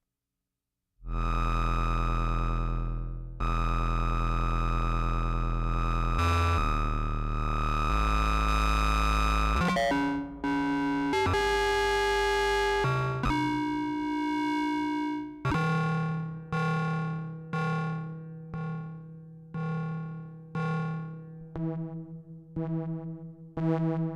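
Buchla Music Easel synthesizer, its complex oscillator stepped to random pitches by a random voltage. It starts about a second in with long held tones that jump from pitch to pitch. About two-thirds of the way through it breaks into shorter gated notes that come faster, two or three a second near the end.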